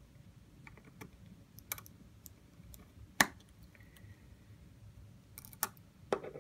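Small, scattered clicks and taps of a precision screwdriver against tiny screws and the metal bracket inside an open iPhone 6s, with one sharper click about three seconds in and a quick cluster of clicks near the end.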